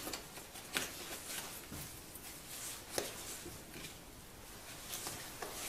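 Willow rods rustling and scraping against each other as they are bent and woven by hand into a basket base, with a few sharp clicks.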